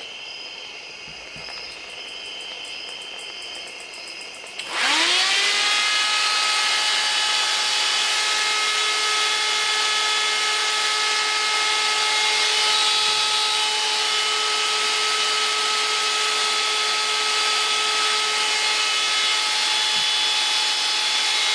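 Electric radiator fan switching on about five seconds in. Its motor spins up with a quickly rising whine, then runs steadily at speed. It is kicked on through the relay once the heated radiator temperature probe reaches its switch-on temperature.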